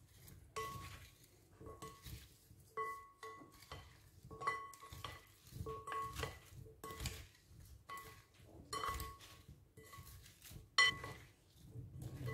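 Two wooden spoons tossing flour- and egg-coated potato strips in a glass bowl: irregular knocks and scrapes against the glass, about one or two a second, each knock setting the bowl ringing briefly.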